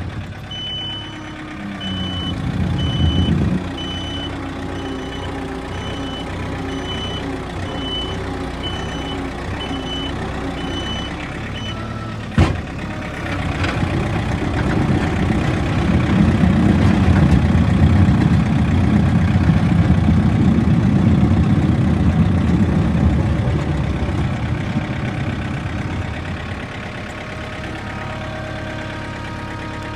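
Backhoe's diesel engine running while its reverse alarm beeps a little more than once a second for the first twelve seconds or so. A single sharp knock follows. The engine then gets louder for about ten seconds as it works, and drops back to a steadier, quieter run near the end.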